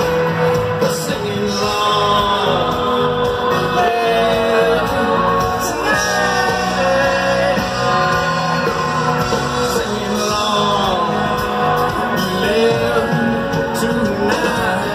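Country band playing live with a male lead vocal, heard from among the audience in a large amphitheater.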